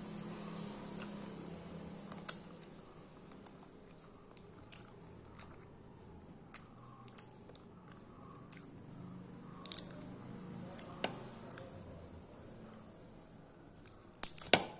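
Green mussel shells clicking and scraping in the fingers as they are pried apart, with chewing mouth sounds; scattered sharp clicks, and two loud sharp clicks near the end.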